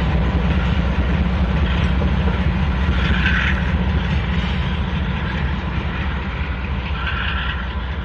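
Freight train passing with a diesel locomotive pushing as a rear DPU: a steady low engine rumble with the noise of rolling freight cars. Two brief high-pitched sounds stand out, about three seconds in and near the end, and the sound eases a little toward the end.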